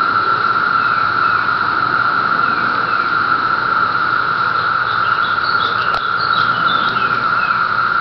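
Dense chorus of 17-year periodical cicadas: a loud, steady, unbroken drone, with a few faint short higher chirps over it and a single sharp click about six seconds in.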